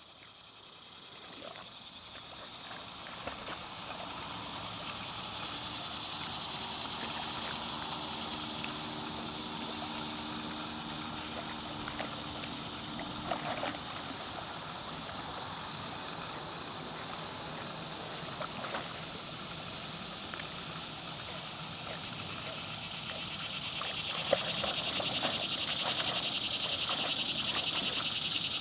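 Evening marsh ambience: a steady, high-pitched chorus of insects that grows louder near the end, with scattered faint clicks and calls. A low, steady hum sits under it from about 5 to 14 seconds in.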